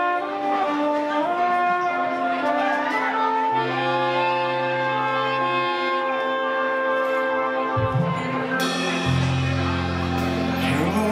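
Live band playing: a horn section of saxophone and trumpet holds long chords over electric bass, with deep bass notes coming in strongly about eight seconds in.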